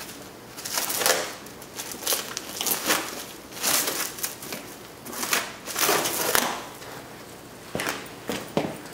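Protective plastic film being peeled off a new headlight assembly, crinkling and crackling in irregular bursts.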